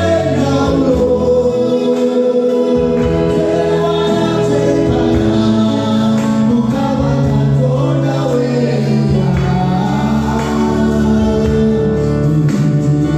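Gospel worship music: a choir and congregation singing with instrumental accompaniment.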